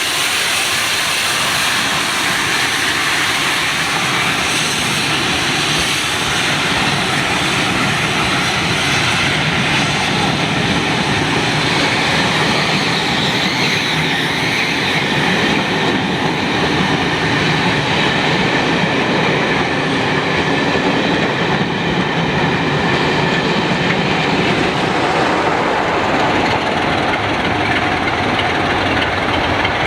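A train running past on the rails, a steady loud rumble of wheels on track throughout.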